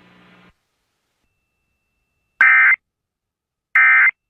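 Emergency Alert System end-of-message data bursts: two short, identical bursts of digital data tone about a second apart, the code that closes an EAS alert. Faint hum cuts off about half a second in, before the first burst.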